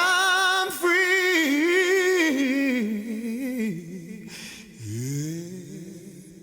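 A solo voice singing long, wavering held notes with no backing, stepping down in pitch, then a shorter rising phrase about five seconds in that fades away.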